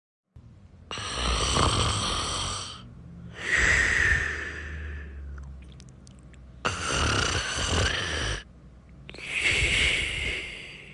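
A person snoring in a slow, steady rhythm: four long snoring breaths, each about two seconds, with a rougher rasping snore alternating with a hissier one.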